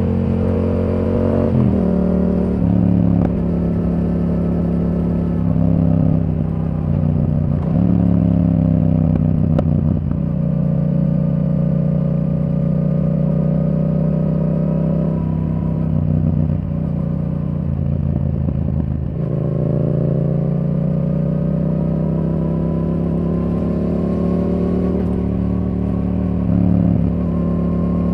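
2023 Yamaha R7's 689 cc parallel-twin engine running under way through a Yoshimura R77 exhaust with the dB killer removed. Its pitch dips and shifts several times, climbs gradually over the second half and rises sharply near the end.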